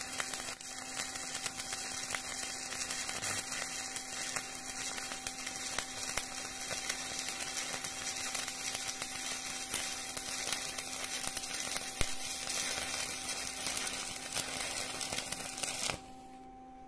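Stick welding arc crackling steadily, with many small pops, as an electrode burns along a steel plate. The arc breaks and the crackle cuts off suddenly near the end, leaving a low steady hum.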